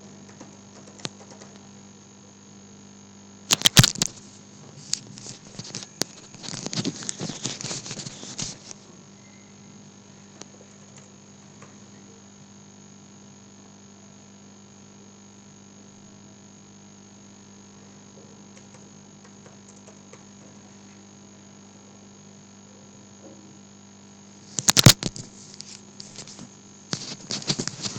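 Computer keyboard and mouse: a few sharp clicks about four seconds in, a run of rapid typing around seven to eight seconds, then more clicks and tapping near the end. A steady low electrical hum runs underneath.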